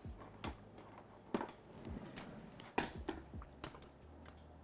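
Scattered soft clicks and light knocks from handling cooked fish and utensils on a plate, about a dozen irregular taps over a low steady hum.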